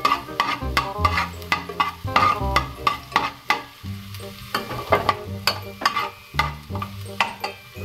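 Ladle scraping and knocking against an aluminium pot, a few strokes a second, as minced garlic is stirred in sizzling oil. Background music plays underneath.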